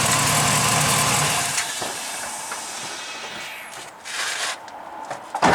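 A 2000 GMC truck's engine running, then cutting off about a second and a half in. Quieter hiss and rustling follow, then a single sharp thump near the end.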